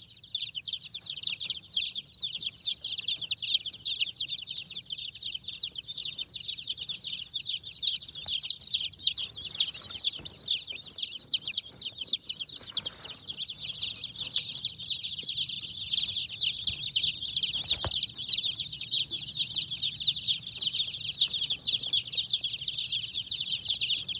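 Many baby chicks peeping at once in a brooder, a dense, unbroken chorus of high-pitched peeps that overlap, each falling in pitch.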